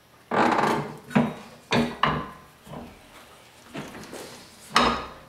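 A hand-operated finger brake (box-and-pan sheet metal brake) being worked to fold a sheet-steel piece to 90 degrees: a string of metallic clunks and scrapes from the steel clamping bar and bending leaf, the loudest about half a second in and again near the end.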